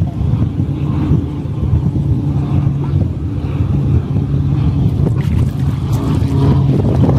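Steady low motor-like hum under a rumble of wind on the microphone.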